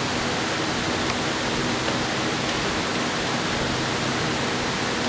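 A steady, even rushing noise with a faint low hum underneath, unchanging throughout.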